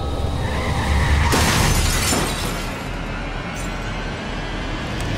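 Dark trailer-style score over a deep low rumble, with a sudden crashing sound-effect hit about a second in that fades out over a second or so.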